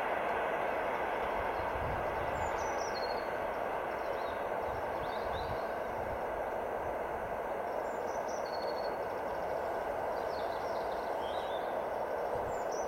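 A steady rushing noise that slowly fades, with short, high chirps of a bird over it five or so times.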